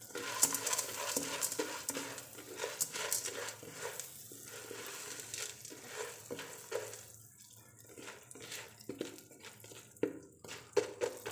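Popcorn kernels being stirred with a spatula in melted butter and salt in a nonstick pan, with irregular scraping and clicking over the low sizzle of the hot butter.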